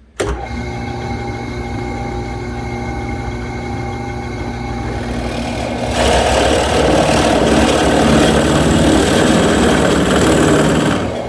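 Drill press motor starting and running steadily; about six seconds in the bit cuts into cedar board, adding a loud, rough cutting noise that lasts until near the end.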